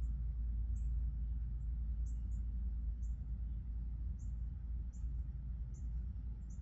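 A small bird's very high, short chirps, each dropping slightly in pitch, repeated irregularly about one or two times a second over a steady low rumble.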